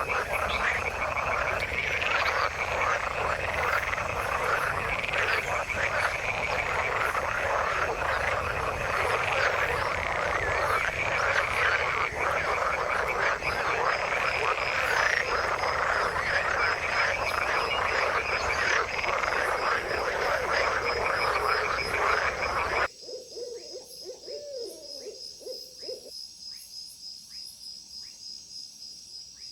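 A dense chorus of many frogs calling over one another. A fast, even high-pitched ticking joins about halfway through. The chorus cuts off abruptly near the end, leaving a quieter scene with a few scattered calls.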